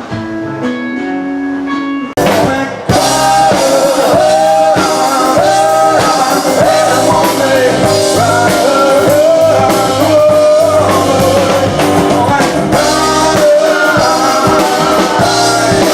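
A rock band playing live, with a singer, guitar and drum kit. It is quieter for the first two seconds, then cuts briefly and comes back loud with full band and vocals.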